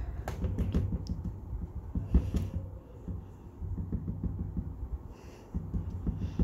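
Damp makeup sponge (beauty blender) dabbed quickly and repeatedly against the back of a hand to blend in liquid foundation: a run of soft, irregular low thuds, with a few sharper ones about two seconds in.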